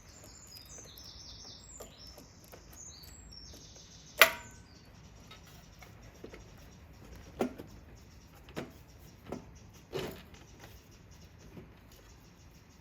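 Scattered clicks and knocks of metal parts being handled and fitted: one sharp click about four seconds in, then four softer knocks over the next six seconds. Faint high chirps sound during the first three seconds.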